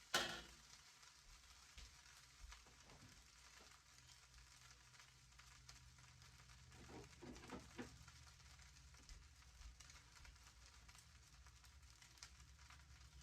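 Faint sizzling of food frying in a pan, with one sharp clatter right at the start and a few soft knocks about seven to eight seconds in.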